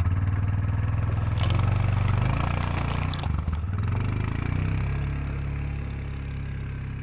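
An engine starts up abruptly and runs steadily at a low, even pitch, with a couple of sharp clanks early on.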